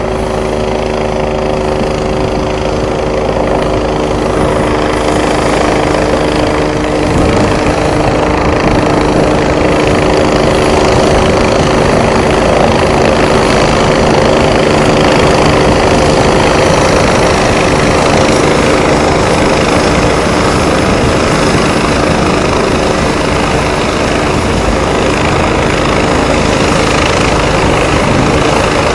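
Rescue helicopter in flight, its rotor and turbine noise steady with a constant hum, growing louder over the first half as it approaches and then holding level.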